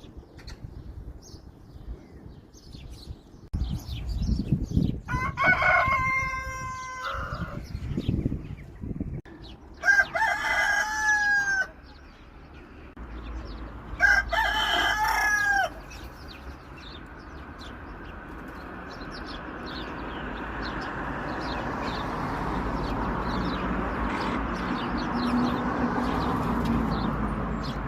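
Rooster crowing three times, each crow a pitched call of about two seconds, the first the longest. In the second half a steady rushing noise slowly grows louder.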